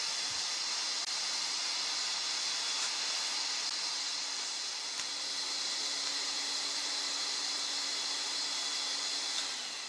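Hilton industrial vacuum running with a steady hiss and faint whine, then winding down near the end, its pitch falling.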